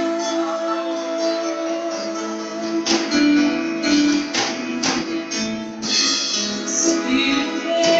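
Live worship-band music in an instrumental passage led by strummed guitar, with a few sharp beats between about three and six seconds in.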